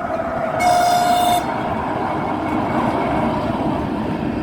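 Narrow-gauge children's railway train giving a short one-note horn blast about half a second in, over the steady rumble of the train running.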